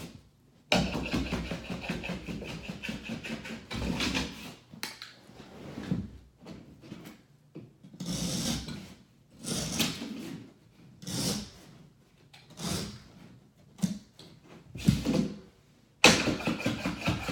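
Carpet being trimmed by hand along the wall with a utility knife: rasping, scraping strokes of the blade through the carpet and its backing. A long run of scraping comes first, then a series of short separate scrapes about a second apart. Music comes in near the end.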